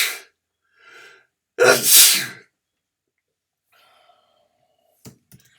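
A man sneezing loudly, the tail of one sneeze at the start and a second full sneeze about two seconds in, with a short breath just before it.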